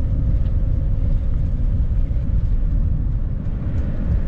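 A vehicle driving, heard from inside the cab: a steady low rumble of engine and tyre noise on the road.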